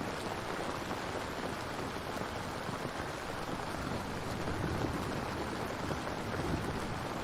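Steady rain falling, an even hiss of drops without thunder or other distinct events.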